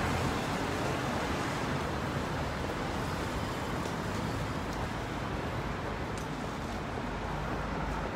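Steady city street traffic noise: a continuous hum of cars passing on the road, with a few faint ticks.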